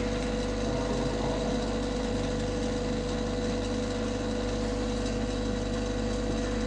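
Vacuum casting machine running during automatic mixing of resin under vacuum: a steady mechanical hum with one constant mid-pitched tone.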